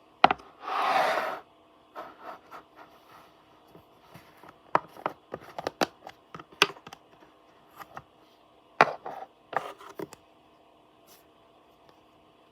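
Slime being handled with the fingers: a string of short clicks and pops as it is pressed and squished, with a longer rushing noise about a second in.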